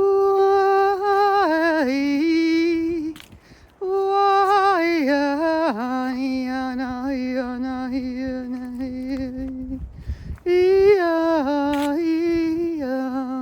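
A woman's voice singing wordless, sustained notes in three long phrases. Each phrase starts high, steps down with wavering ornaments and settles on a held lower note, with short pauses for breath between them.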